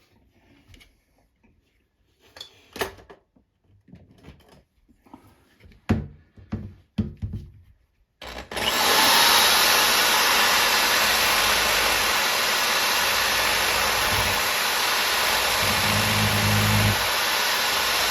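A few clicks and knocks of handling, then about eight seconds in a power tool starts suddenly and runs steadily and loudly: a plastic foot chucked in an electric drill being ground down.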